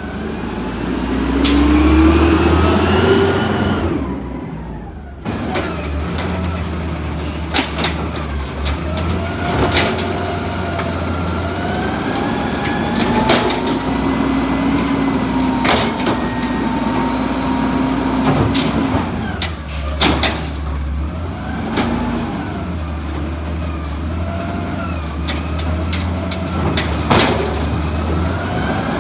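Automated side-loader garbage truck collecting carts: its diesel engine runs steadily while the hydraulic arm works with a whine that rises and falls in pitch, and sharp bangs and clanks come several times as carts are gripped, lifted and dumped into the hopper.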